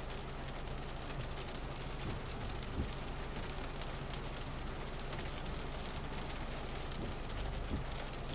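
Rain hitting a car's windscreen and roof, heard from inside the cabin over a low steady hum. Two soft knocks stand out, about three seconds in and near the end.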